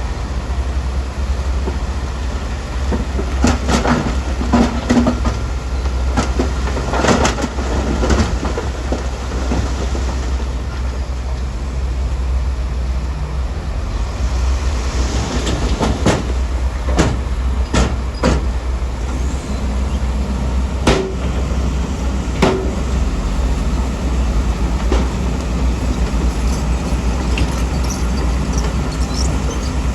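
Heavy diesel earthmoving machinery running steadily, with scattered knocks and clanks.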